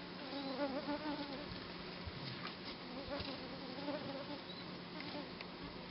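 A flying insect buzzing close by, its pitch wavering up and down as it moves, in two spells: one near the start and another around three seconds in.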